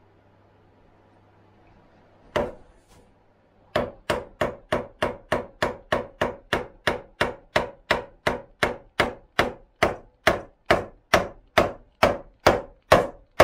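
Beech wooden mallet striking the handle of a bench chisel, chopping a mortise into a timber beam. One blow about two seconds in, then steady, evenly spaced blows at about three a second, growing slightly louder.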